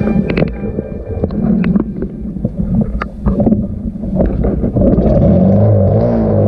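Trail motorcycle engine running over rough, wet track, with scattered knocks and clatter and wind buffeting the microphone. About five seconds in, a steadier low hum takes over.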